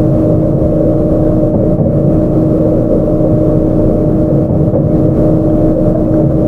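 A 681-series electric multiple unit car (KuMoHa 681-507, Toshiba GTO-VVVF) running along the line, heard from inside the car: a steady rumble of running noise with two constant tones humming over it.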